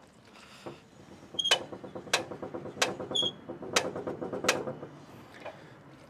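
Log-lift height crank of a Logosol F2 Plus chainsaw mill being turned to raise the log, clicking through its quarter-inch index stops. There are about five sharp clicks, roughly one every three-quarters of a second, with a ratcheting creak of the mechanism between them.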